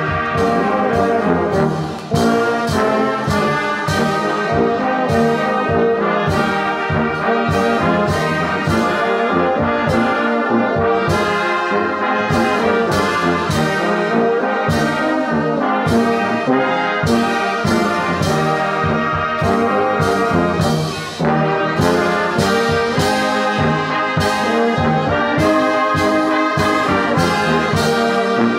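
Brass band of trumpets, trombones, tubas and a sousaphone, joined by flutes and clarinets, playing a hymn. The band pauses briefly about two seconds in and again about twenty-one seconds in, between phrases.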